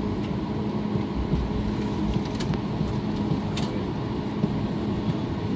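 Steady rumble and hum of a Boeing 737 MAX 8 airliner before its takeoff run, with a constant low drone and a few faint clicks.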